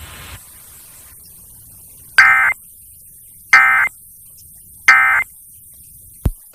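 Emergency Alert System end-of-message signal: three short buzzy digital data bursts (the SAME 'NNNN' end-of-message code sent three times), each about a third of a second, about a second and a half apart, marking the end of the alert test. A faint click comes near the end.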